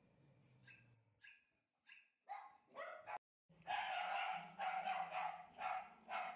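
A debarked Pomeranian barking, its vocal cords cut: about five faint, hoarse yaps. After a short break, a German Shepherd cries in louder, repeated whining calls about twice a second.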